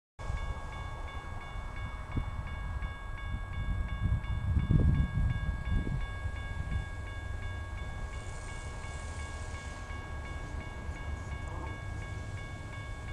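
Railroad grade-crossing warning bell ringing with quick, evenly spaced strokes, signalling an approaching train, over a low rumble that swells for a moment about five seconds in.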